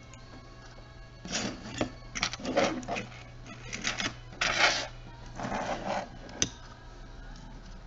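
Small plastic camcorder parts being handled and fitted together: a run of clicks, rattles and scrapes, ending in one sharp click.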